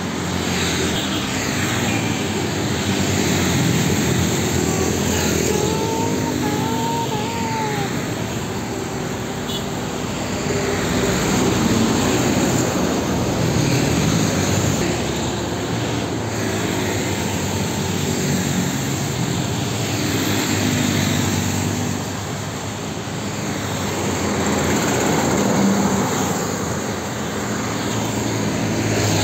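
Roadside traffic: heavy diesel trucks and motorcycles passing close by, the engine and tyre noise swelling and fading with each pass. Two short squeaky tones sound about six seconds in.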